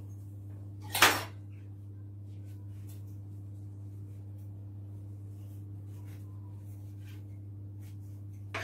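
A sharp clatter of kitchenware about a second in, then faint knife taps and scrapes as an avocado is cut, over a steady low hum.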